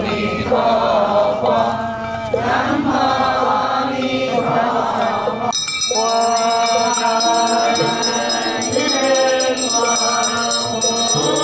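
Buddhist chanting by a group of voices. About halfway through it cuts abruptly to a smoother recorded chant with held notes over a steady high shimmer.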